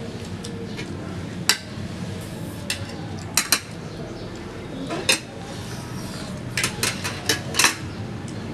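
Metal spoons and a ladle clinking against enamel plates and a steel pot: about a dozen short, sharp clinks, several of them bunched together near the end.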